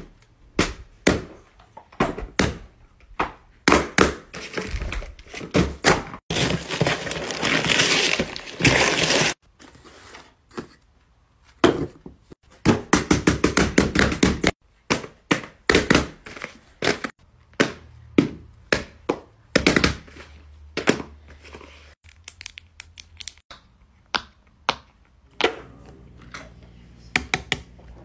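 Hands handling and unwrapping a gift-wrapped box and cardboard packaging on a paper mat: a string of sharp taps and thuds, with two stretches of paper rustling and tearing, one about six seconds in lasting about three seconds and a shorter one about twelve seconds in. Lighter taps follow near the end.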